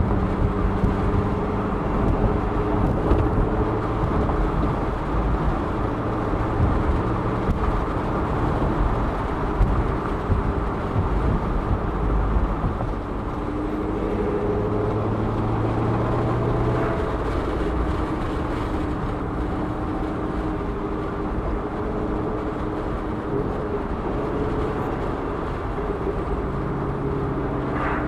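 Ford Shelby GT500's V8 engine heard from inside the car while cruising, with steady tyre and road noise. The engine note rises and falls in pitch a few times as the car changes speed.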